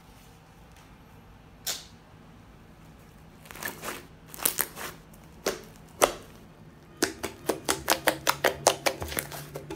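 Thick butter slime made with soft clay being pressed and poked with fingers, making small clicking pops. There is one click about two seconds in, a few scattered pops after it, then a quick run of about five clicks a second over the last three seconds.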